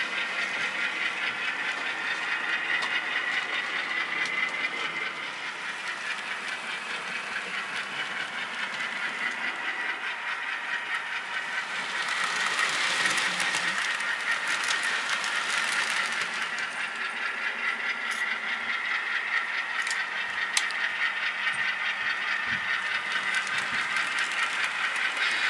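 Model train rolling along the layout track, with a steady high whine and the rattle of the cars' wheels on the rails. It gets louder as the cars pass close, about twelve seconds in. There are a few sharp clicks, like wheels crossing rail joints or turnouts, near the end.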